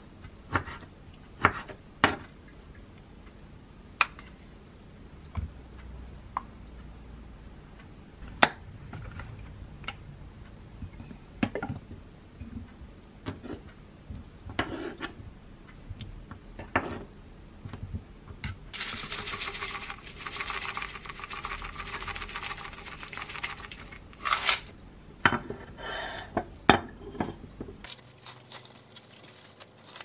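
Kitchen knife knocking on a wooden cutting board as golden kiwi is cut, with sharp knocks every few seconds and light clinks of a glass cup. Past the middle comes about five seconds of dense rustling as granola is poured over yogurt in the cup.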